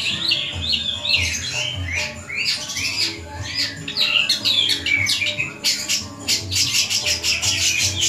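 Long-tailed shrike (cendet) singing a fast, varied string of chirps and sweeping whistled notes. The notes come quicker and denser in the second half.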